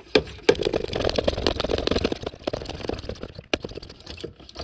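A brake pressure bleeder being pumped up to pressure to bleed the brakes: a rapid mechanical clatter for about three seconds, then quieter.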